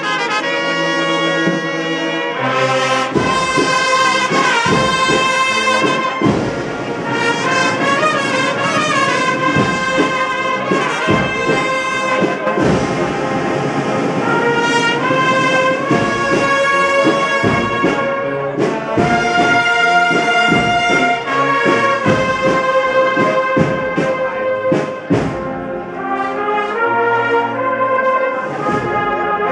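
A Sevillian agrupación musical, a cornet-and-brass band with drums, playing a march. Sustained brass melody throughout, with drum beats coming in about three seconds in.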